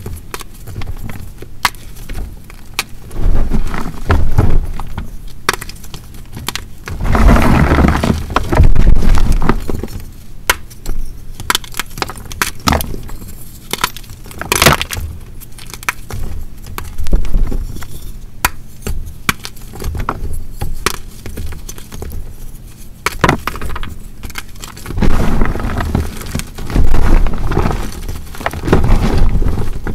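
Dried hearts of BSN gym chalk being crushed, cracking and crumbling. Sharp snaps come throughout, with louder stretches of crumbling a few seconds in, around eight seconds in, and again near the end.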